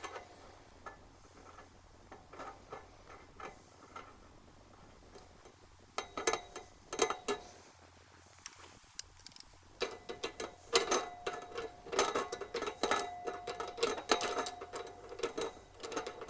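Rapid metallic clicking and clinking of tools on a brass gas fitting as it is fitted to a patio heater's gas inlet. Sparse at first, with a short burst about six seconds in, then a dense run of clicks from about ten seconds in.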